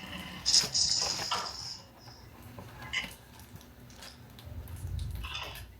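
Rustling and a few light clicks and knocks as party decorations are handled, busiest in the first second and a half.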